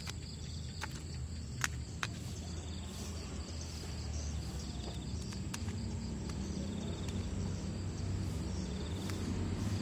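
Night-time insect chorus of crickets: a steady high chirring with short trills recurring every few seconds. A few sharp clicks come in the first two seconds, over a low rumble of handling.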